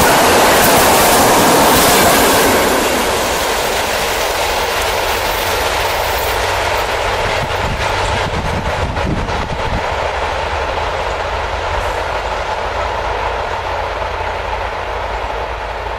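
ED4M DC electric multiple unit passing close at speed, its wheels rumbling and clattering over the rails. The noise drops about two and a half seconds in as the tail of the train goes by, then the rumble slowly fades as the train runs off down the line.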